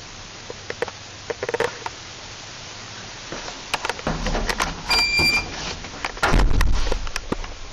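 Clicks and knocks, then a short electronic beep from a refurbished lift's push button about five seconds in, followed by a low rumble that grows much louder about a second later.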